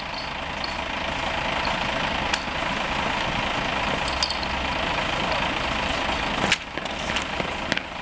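An engine running steadily, most likely the fire brigade's pump or vehicle engine during a hose-laying drill, with a few sharp metallic clicks and knocks over it.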